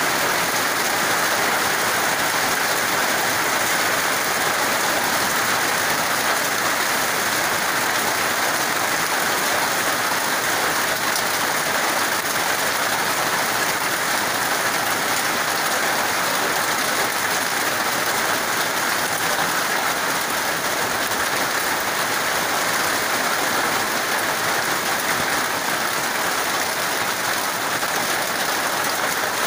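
Steady heavy rain falling on a corrugated metal roof overhead and on the surrounding trees and mud, with runoff spilling from the roof edge.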